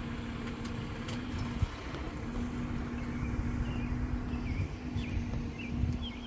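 Jeep Wrangler engine idling with a steady hum. There is a single knock about a second and a half in, and birds chirp from about halfway through.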